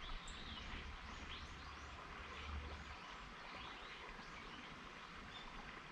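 A river stream flowing with a steady hiss, while small birds chirp repeatedly with short high calls.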